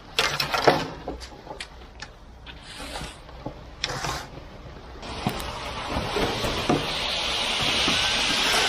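Wet concrete sliding down a ready-mix truck's chute and spilling onto the slab: a gritty, steady rush that builds from about halfway through. In the first half there are sharp clinks and knocks from the chute's chain and sections being handled.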